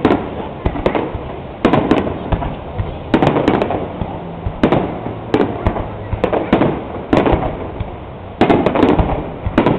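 Aerial fireworks bursting in quick succession: a dozen or more sharp bangs, roughly one a second, each trailing off in a rumbling echo, with a tight cluster of bangs near the end.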